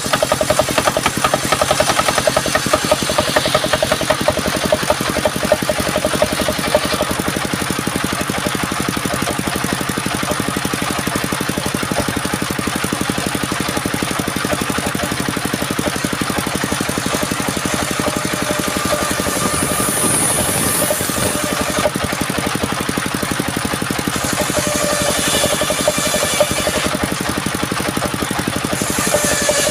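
A wood-sawing machine running steadily under power, with a fast even throb and a few steady tones over it.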